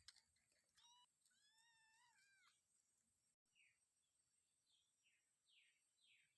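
Very faint cat meows: a short mew about a second in, then a longer, arching meow. After these come a few short, high, falling chirps.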